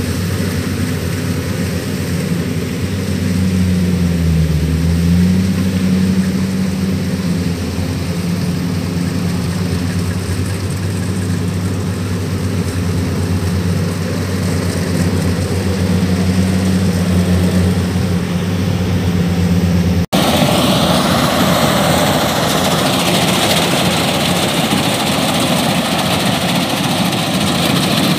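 Kubota DC-105X combine harvester's diesel engine running steadily as it harvests rice, its pitch dipping briefly and recovering a few seconds in. About two-thirds of the way through, the sound switches abruptly to a closer, noisier take of the working combine.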